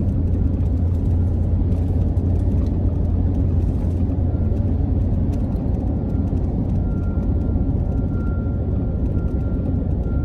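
Car driving at highway speed: steady tyre and engine noise with a deep, even low rumble.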